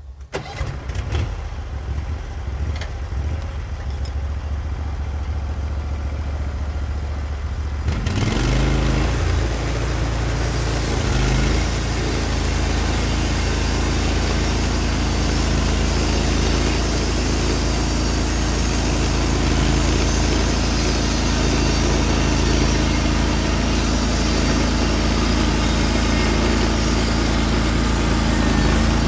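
Norwood HD36v2 portable bandsaw mill's gas engine starts and idles with a low rumble. About eight seconds in, it is throttled up, rising in pitch, and then runs steady at full speed. From about ten seconds in, a loud hissing saw noise joins as the band blade cuts into the pitch pine log.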